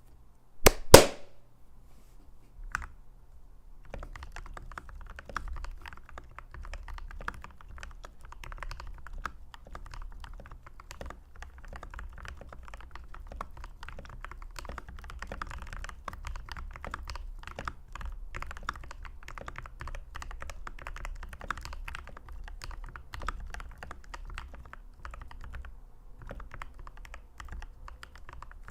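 Typing on a Red Square Keyrox TKL Pro 2 mechanical keyboard with Gateron Yellow linear switches: dense, continuous keystroke clacks from about four seconds in, with a brief lull near the end. Before that come two loud sharp knocks about a second in and a single one a couple of seconds later.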